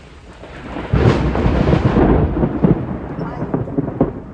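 Close thunder: a sudden loud crack about a second in, then a long low rumble that slowly fades, with rain falling.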